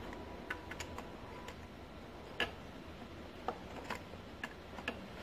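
Pliers clicking against a rubber coolant hose's clamp and the metal fittings at a throttle body: about nine irregular sharp metallic clicks, the loudest about halfway through.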